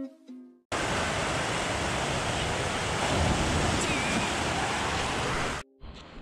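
Loud, steady rush of water gushing out of an indoor water slide's exit into the pool, with a rider splashing down partway through; it cuts off abruptly near the end.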